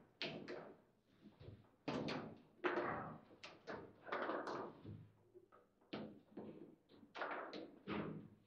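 Table football in play: irregular sharp knocks and clacks as the ball is struck by the plastic figures and the rods are worked, about a dozen hits of varying loudness.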